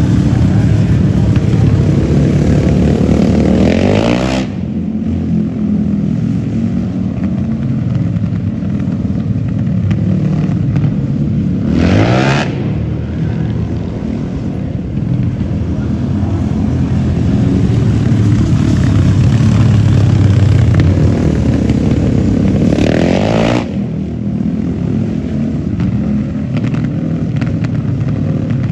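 An engine running loudly, its pitch climbing and then dropping off sharply three times, about four, twelve and twenty-three seconds in.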